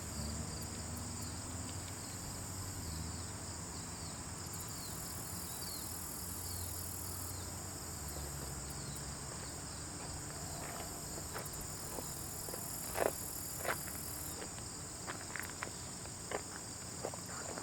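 A steady, high insect chorus, cricket-like, over a low rumble. From about two-thirds of the way in come scattered sharp clicks and ticks, a few louder than the rest.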